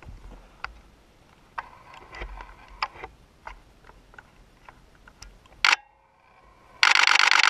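Scattered faint clicks, a single sharp click near six seconds, then, about seven seconds in, a DSLR camera shutter firing in a rapid continuous burst, loud and evenly repeated.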